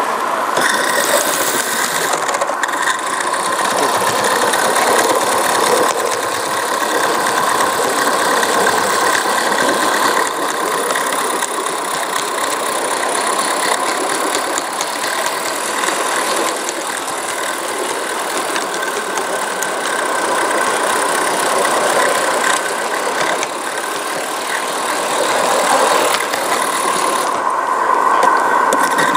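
Small gauge one live steam locomotive running on track, with a steady hiss of steam and mechanical chatter.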